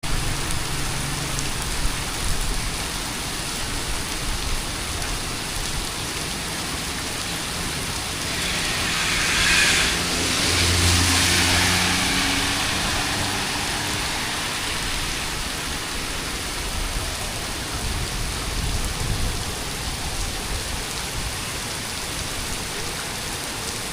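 Steady heavy rainfall, an even hiss of rain on surfaces. About nine seconds in it swells louder for a few seconds, with a low hum under it.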